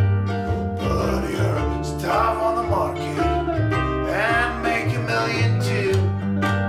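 Acoustic string-band music, an instrumental break: a lead line with bending, sliding notes over a strummed ukulele and a plucked upright bass.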